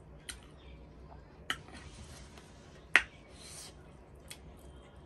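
Close-up eating sounds of a person eating chicken and rice by hand: soft chewing and wet mouth noises, broken by a few sharp smacking clicks, the loudest about three seconds in.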